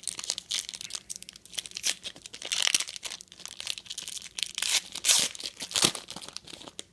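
A trading-card pack wrapper being torn open and crinkled by hand: a dense, irregular run of crackles and rips.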